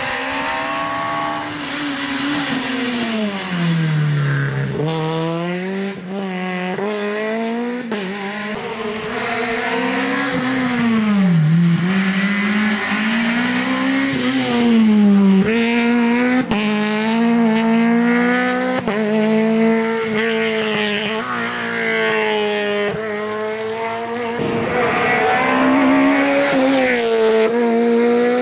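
Peugeot 208 VTi rally car's four-cylinder engine at high revs, its pitch climbing through the gears and dropping sharply on lifts and downshifts, over a few passes joined by abrupt cuts. Tyre hiss and spray on the wet road run underneath.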